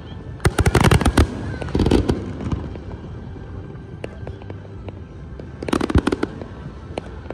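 Aerial firework shells bursting in quick volleys of sharp bangs: a dense cluster about half a second in, another around two seconds, and another near six seconds, with scattered pops and crackle in between.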